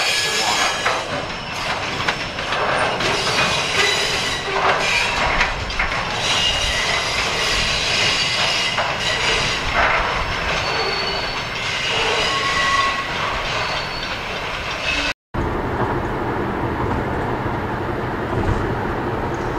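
Freight train cars, log-loaded bulkhead flatcars and covered hoppers, rolling past with wheels clattering on the rails and a few brief squealing tones. About three-quarters through it cuts to steady road noise inside a moving car.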